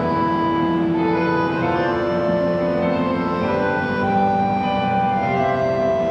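Concertina playing a slow tune in long held notes, with several notes sounding together.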